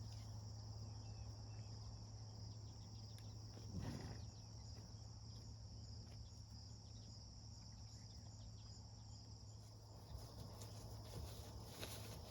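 Crickets chirping in a steady high trill over a low steady hum, with a brief louder sound about four seconds in and a few light ticks near the end.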